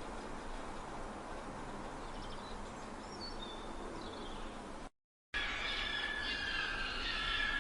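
Steady outdoor background noise with a few faint bird chirps. Then it cuts off to a moment of silence, and a louder recording of several sustained high-pitched animal calls begins.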